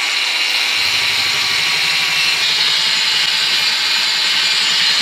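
Ryobi cordless angle grinder fitted with a finger belt sander attachment, running steadily with a loud, high hiss; a lower hum joins about a second in.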